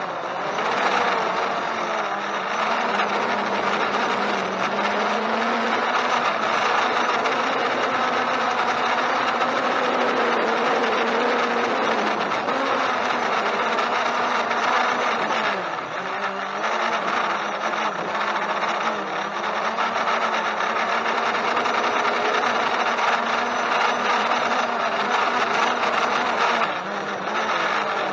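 Holystone HS700D quadcopter's motors and propellers whirring in flight, the pitch wavering up and down as the motors keep correcting against strong wind. The sound dips briefly about halfway through and again near the end.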